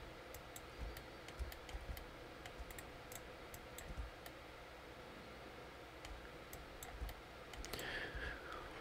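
Faint, irregular clicking of a computer mouse and keyboard, one click or keystroke at a time with short gaps.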